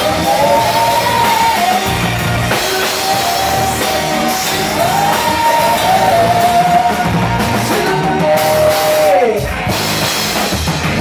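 Live rock band playing loudly: a man and a woman singing into microphones over a drum kit, with one sung note sliding down about nine seconds in.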